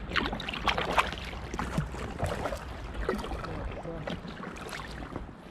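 Kayak paddle strokes: the blade dipping and splashing into calm water close by, with dripping between strokes.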